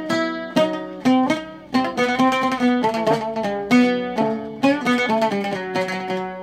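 Solo oud playing a plucked melody of separate notes, each struck sharply and left to ring, with a few sliding pitch changes on its fretless neck.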